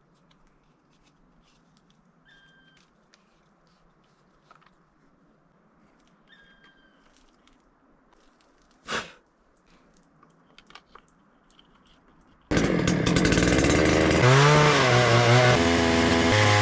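Near-quiet at first with faint ticks and one sharp knock. About three-quarters of the way in, a two-stroke chainsaw engine cuts in loud and runs, its pitch rising and falling as it revs.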